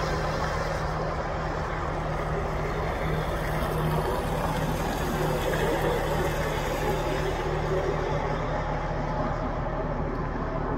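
Twin-turboprop ambulance aircraft on final approach to land, its engines giving a steady drone with a low hum.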